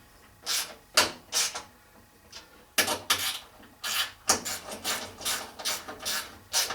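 Hand-operated rivet nut tool working a threaded rivet nut into sheet metal: a dozen or more short rasping metal scrapes, irregularly spaced, as the tool is turned against a nut that is giving trouble.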